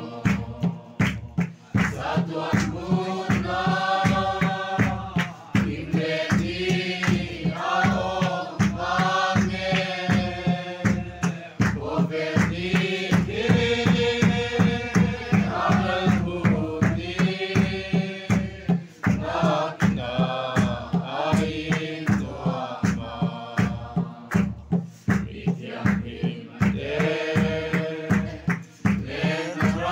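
A group of people singing a Mizo mourning song together, carried by a steady, even beat on large Mizo khuang drums.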